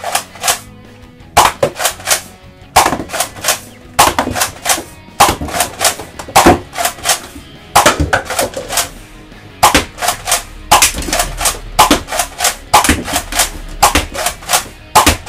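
Nerf Rival Artemis spring-powered pump-action blaster firing foam balls in rapid bursts: loud sharp pops a fraction of a second apart, in clusters of several with brief pauses between.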